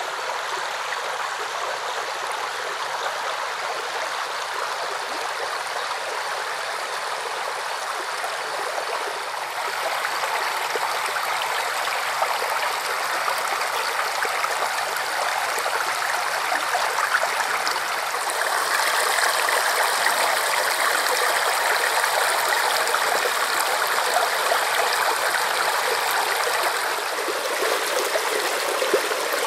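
Steady rushing water, like a stream or cascade, with no lines or pattern in it. It grows a little louder about a third of the way in, brighter again just past halfway, and eases slightly near the end.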